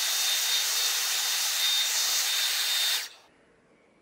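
Dyson Airwrap hair styler with its barrel attachment running: a steady, loud rush of air from its high-speed fan, with a thin high whine over it. It is switched off about three seconds in and cuts out abruptly.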